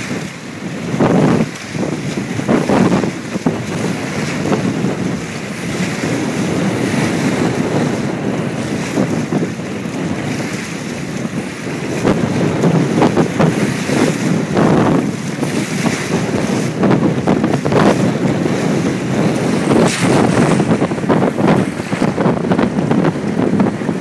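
Strong, gusty wind buffeting the microphone, with waves breaking and splashing over a low jetty at the water's edge.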